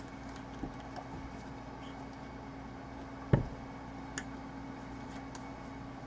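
Steady background hum with a low tone, a few faint ticks, and one sharp knock about three seconds in.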